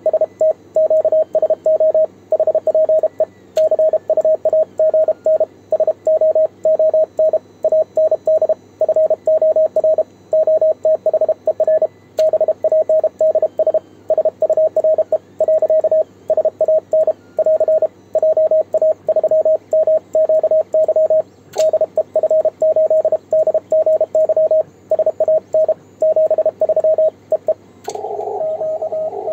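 Morse code sidetone from a ham transceiver: one steady tone keyed on and off in dots and dashes by a hand-worked, homemade 3D-printed single-lever paddle, sending CW on 28 MHz. Near the end the keying stops and the receiver's hiss comes up from the speaker.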